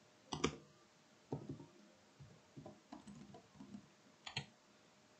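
Faint, separate clicks of computer keyboard keys, a handful of taps spread over a few seconds as blank lines are entered in a text editor.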